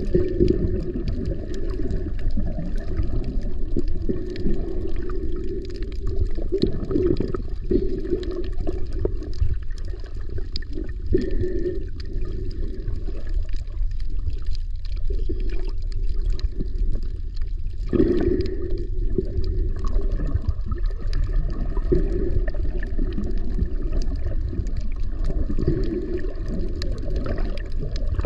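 Muffled underwater water noise from a camera held just below the surface while snorkeling: a steady low rumble of moving water that swells and fades, with faint scattered ticks.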